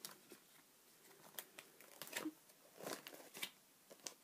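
Faint crinkling and rustling of plastic card-sleeve pages in a ring binder as a page is turned, heard as a handful of short crackles.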